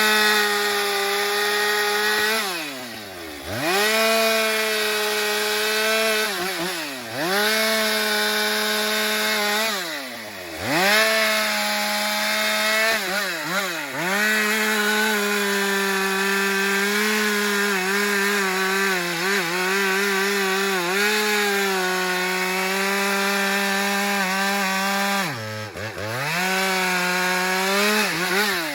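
Husqvarna 394 XP two-stroke chainsaw running at full throttle through wood. The revs drop sharply and climb back about five times as the throttle is let off and squeezed again between cuts, and in one long cut in the middle the engine note wavers under load.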